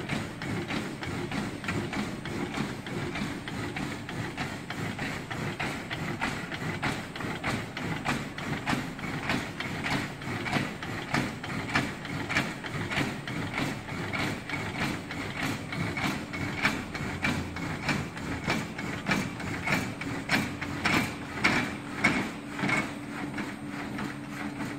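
Rock wool slicing machine running: a steady motor hum with a regular knocking or clicking from the mechanism, about two strokes a second, growing louder in the second half.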